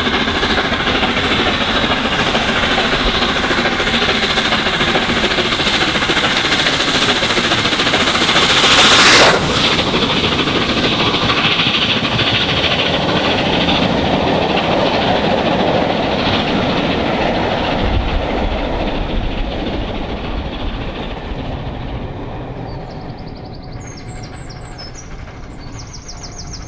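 LNER A3 Pacific steam locomotive 60103 Flying Scotsman running at speed with a train of coaches. It grows louder as it approaches and is loudest as the engine passes close by about nine seconds in. The coaches then rattle past on the rails, fading away into the distance.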